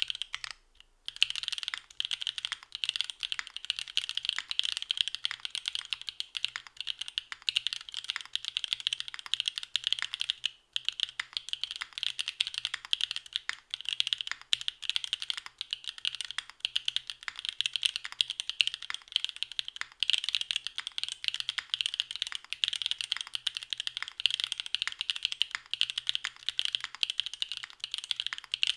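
Continuous fast typing on a Singa Rubrehaku custom mechanical keyboard fitted with Dragon Ghost switches and GMK keycaps on a gasket-mounted full aluminium plate with no dampening foam: a dense run of crisp keystroke clicks, pausing briefly just after the start and again about ten seconds in.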